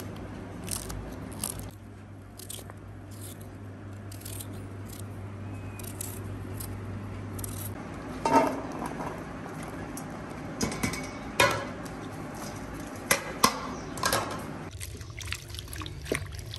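Diced potatoes tipped from a plastic basket into a steel bowl of water with a splash about halfway through. A hand then swishes and splashes the potatoes, sliced onions and green chillies in the water a few times.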